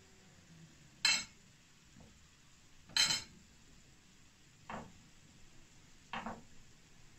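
A metal spoon clinking against a ceramic plate while fried dough rings are rolled in powdered sugar. There are two sharp clinks, about one and three seconds in, then two softer knocks near five and six seconds.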